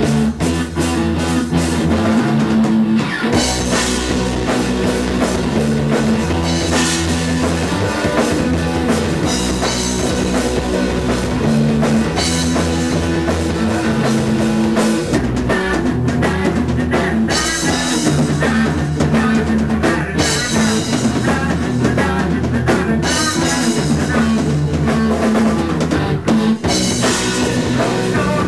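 Rock band playing live: electric guitar, bass guitar and a DW drum kit in an instrumental passage, the chords changing every couple of seconds under steady cymbals.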